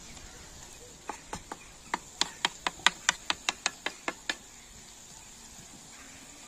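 Wooden spatula knocking against a black steel sac pan while stirring and chopping the food in it: a run of about fifteen sharp clicks that starts about a second in, speeds up to about four a second, and stops a little after four seconds.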